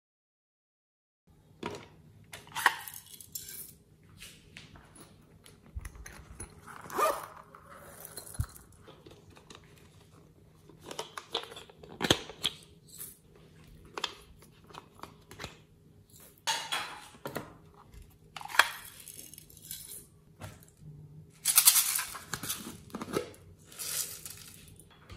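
Small plastic toy containers being handled, opened and emptied: irregular sharp plastic clicks, taps and snaps with short rustling bursts, after about a second of dead silence at the start.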